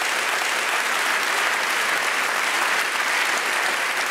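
Large studio audience applauding steadily.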